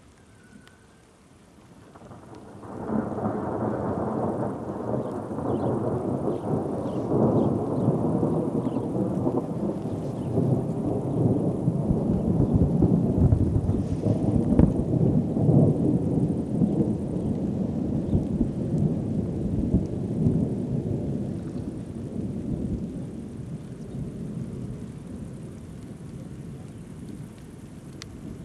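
Long roll of thunder that swells suddenly about three seconds in, then rumbles deep and unbroken for some twenty seconds before slowly fading.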